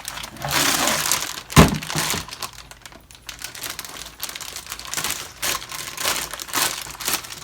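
Plastic packaging crinkling and rustling as it is handled and unwrapped, with a sharp click about a second and a half in and small crackles after.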